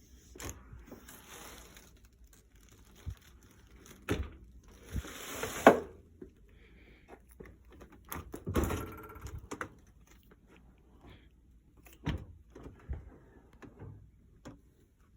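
A dishwasher being handled: scattered thunks and knocks with a few sliding scrapes, the loudest a thunk about six seconds in.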